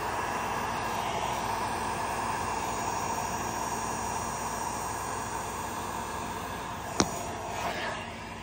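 Handheld heat gun blowing steadily over wet epoxy resin. A sharp click comes about seven seconds in, and the blowing then dies away.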